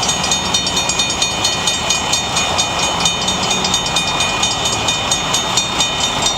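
Two Western-Cullen-Hayes railroad crossing bells ringing in rapid, steady strikes. They were set off by a crossing malfunction, with no train approaching.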